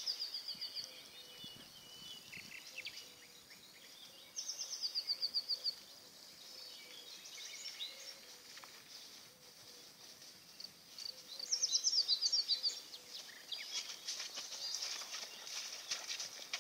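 A songbird sings a short phrase of quick notes falling in pitch, three times, with fainter twittering between. From about three seconds before the end, a ridden horse and a pack horse come closer through tall grass: a busy rustle of hooves and vegetation that grows louder.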